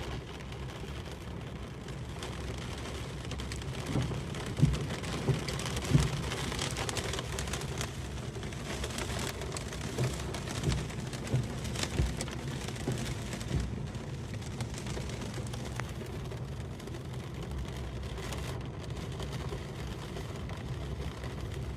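Heavy rain falling steadily, with several sudden sharp knocks standing out above it between about four and twelve seconds in.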